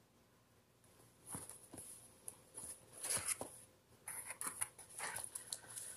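Cardboard retail box being opened by hand: a run of irregular scrapes and rustles from the flaps and the paper inside, starting about a second in and growing busier toward the end.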